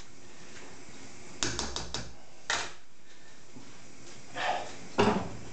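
Light kitchen clatter from an enamel pot and a spoon being handled: a quick run of clicks and knocks about a second and a half in, another click a second later, and a single sharp knock near the end as the pot is lifted off its wooden board.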